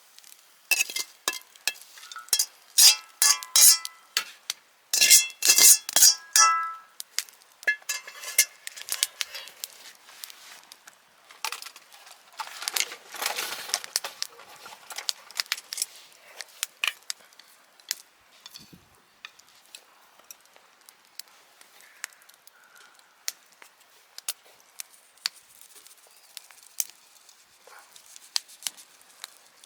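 Utensils clinking against cookware or a dish: a run of ringing metallic strikes in the first seven seconds, then lighter scattered clicks and taps.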